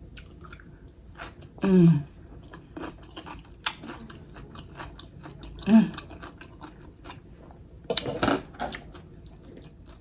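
Close-miked chewing and biting of food, with short crunches and wet mouth clicks, broken by a couple of brief falling voiced sounds.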